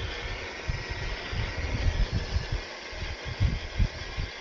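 Traxxas TRX-4 Defender RC crawler running, its electric motor and gears giving a faint steady high whine, with irregular low thumps throughout.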